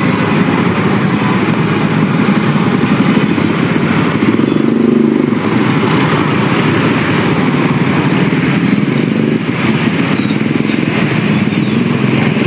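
Loud road traffic passing close: a steady rush of vehicle engines and tyres, with one engine note rising and falling about four seconds in.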